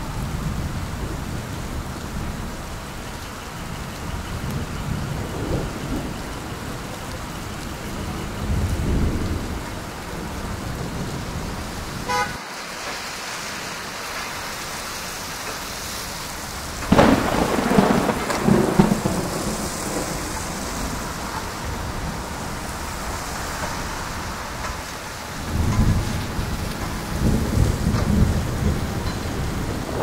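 City street ambience in a snowstorm: a steady low rumble of traffic that swells several times, loudest in a sudden burst a little past halfway.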